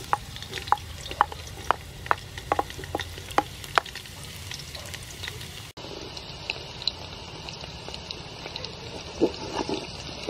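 Chopped garlic frying in hot soybean oil in a metal pot, with a run of sharp ticks through the first four seconds. After a cut about halfway through, a wooden spoon stirs the garlic with a few soft scrapes against the pot.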